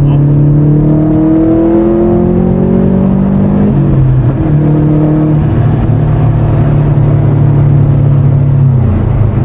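Subaru WRX STI's turbocharged flat-four engine pulling up through a gear, its pitch rising for about four seconds, then dropping at a gear change and holding steady as the car cruises, with another drop near the end. The engine is running on a base tune.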